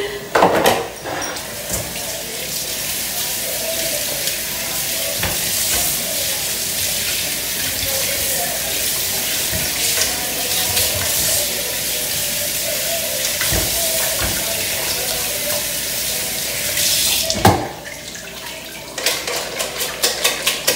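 Kitchen tap running steadily into an aluminium pot of raw chicken in the sink as the pieces are washed by hand. The water stops with a knock a few seconds before the end, followed by a few light clinks of the pot.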